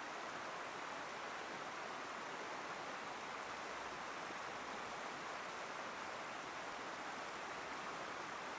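Chehalis River floodwater rushing past a fence line and churning around debris, a steady, even rush of water.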